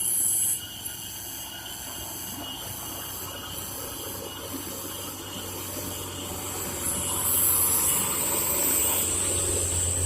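Heavy truck engine running under load on a steep uphill road, with a steady hiss over it; it grows louder from about seven seconds in.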